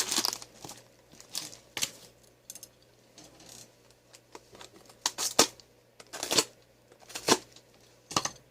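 Scissors cutting and tearing through heavy packing tape on a parcel. The cuts and rips come as a handful of short, sharp strokes with quiet stretches between them, the loudest between about five and seven and a half seconds in.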